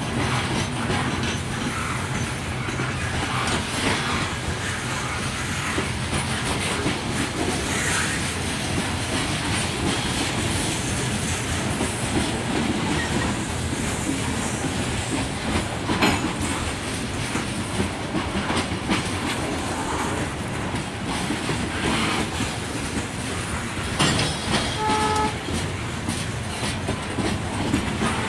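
A Norfolk Southern coal train's hopper cars roll past close by: a steady heavy rumble with the clickety-clack of steel wheels over the rail joints and scattered sharp clicks. Near the end, a short horn toot sounds once.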